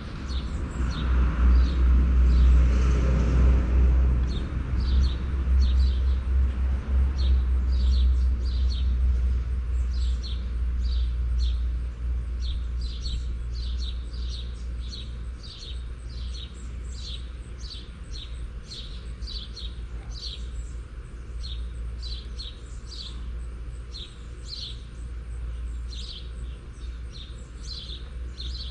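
A bird chirping over and over, about two short high chirps a second, over a low rumble that is loudest in the first few seconds and then eases off.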